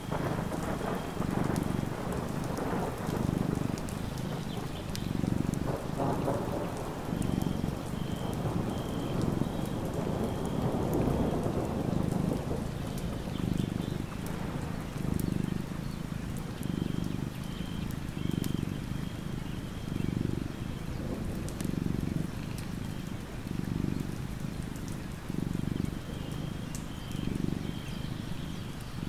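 Steady rain with thunder, the rain haze thinning after the first twelve seconds or so. Under it, a sleeping cat purring: a low pulse repeating about once a second.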